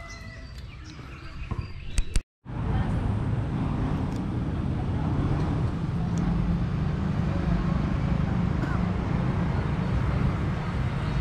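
Steady low rumble of road traffic, urban outdoor ambience. Two sharp clicks come about two seconds in, just before the sound drops out briefly.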